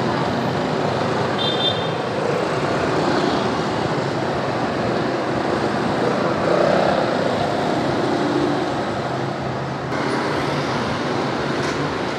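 Steady traffic noise of a busy street, with motor scooter and car engines running.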